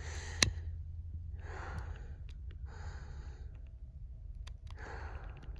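A person's breathing close to the microphone, several audible breaths a second or so apart, with one sharp click about half a second in, over a steady low rumble.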